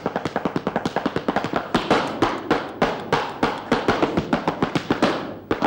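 Flamenco zapateado: rapid heel and toe strikes of a dancer's shoes on a wooden stage floor, a fast, dense rhythm that eases briefly near the end.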